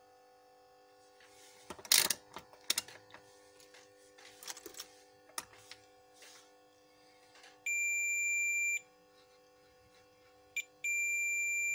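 Continuity beeper of a UNI-T UT33C digital multimeter sounding a steady high tone for about a second, then a short blip and a second longer tone, as the probes bridge a diode that is shorted. Before it, clicks and knocks of handling, the loudest about two seconds in.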